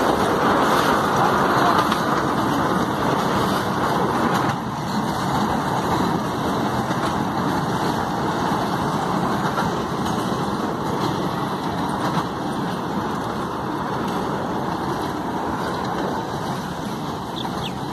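Miniature passenger train running along its narrow-gauge track, a steady mechanical rumble of engine and wheels, a little louder for the first four or five seconds and then slightly softer as it draws away.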